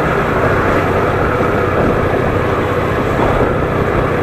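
Steady running noise of a vehicle's engine and road, even throughout.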